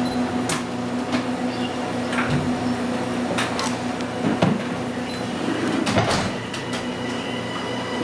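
Kitchen background noise: a steady machine hum, with scattered clicks, knocks and clatter from work going on around it.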